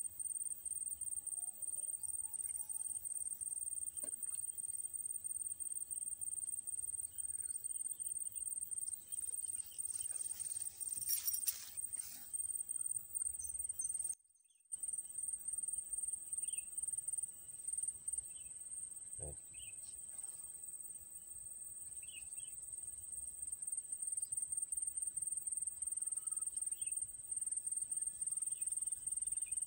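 Steady, high-pitched chirring of insects, unbroken except for a brief dropout about fourteen seconds in.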